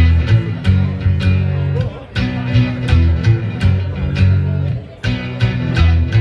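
Rockabilly band playing an instrumental guitar passage between vocal lines, with a steady bass line and regular strummed or struck beats, several each second.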